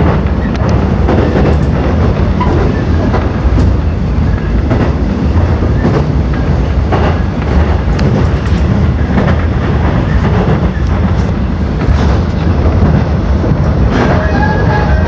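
Seoul Line 1 electric subway train running, heard from inside the car: a loud, steady low rumble with irregular clacks of the wheels over the rail joints. Near the end a few higher steady tones come in.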